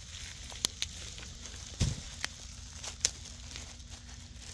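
A few sharp clicks and crinkles over a steady background, with a soft thump about two seconds in.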